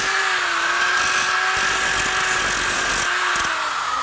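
Handheld electric power tool running steadily as it rounds off the edges of a wooden birdhouse board, a steady motor hum whose pitch dips slightly near the end.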